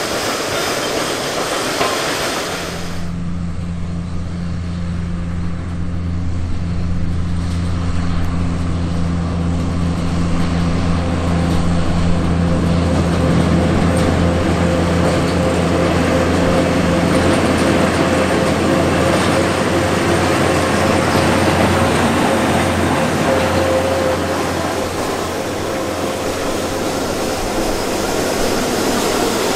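Cane bins rolling past on the narrow-gauge cane tramway for the first few seconds. Then a sugar-cane railway diesel locomotive's engine hums steadily as it approaches and passes hauling a rake of cane bins, growing louder toward the middle.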